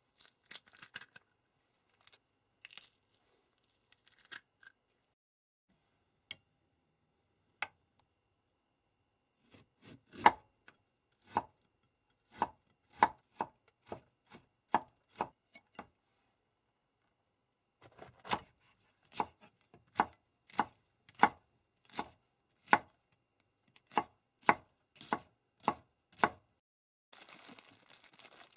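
Knife chopping food on a cutting board: two runs of steady strokes, about two a second, after a few scattered light clicks. A short rustle comes near the end.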